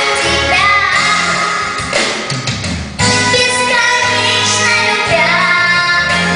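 A female voice singing a song with musical accompaniment, in long held notes. The music thins out about two seconds in and comes back full about a second later.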